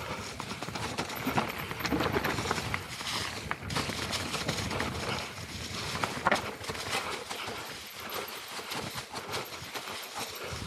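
Mountain bike descending a rough forest trail: tyres crunching over dry leaves and loose stones, with a constant clatter and rattle of the bike over the bumps and a sharp knock about six seconds in.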